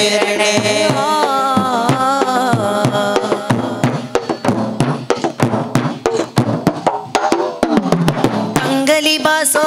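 Boys' voices singing a Malayalam madh song over drum percussion. The singing stops about three and a half seconds in, leaving a stretch of quick drum strokes alone, and the voices come back near the end.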